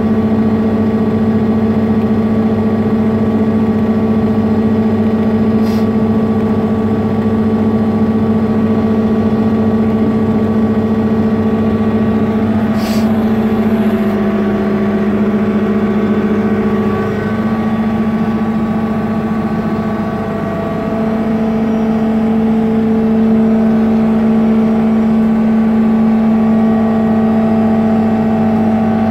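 Sherp N amphibious ATV's turbocharged diesel engine idling steadily at about 1,000 rpm, heard from inside the cabin.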